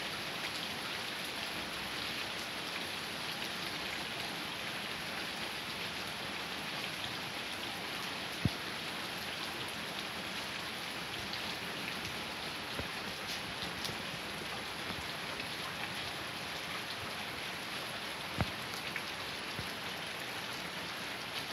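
Steady rain falling on the street, easing a little, with runoff water running down the sidewalk and street. Two single sharp taps stand out, one about eight seconds in and one near the end.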